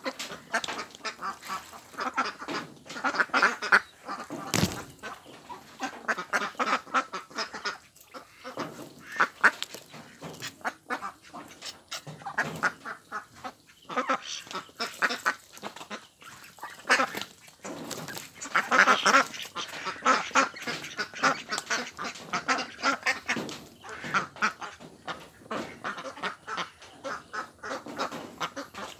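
A flock of domestic ducks quacking continuously, many voices overlapping in a rapid chatter.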